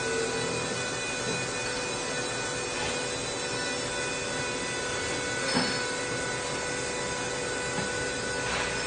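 CNC lathe and gantry auto loader running: a steady machine whir with several steady whining tones, and a single sharp clack a little past halfway.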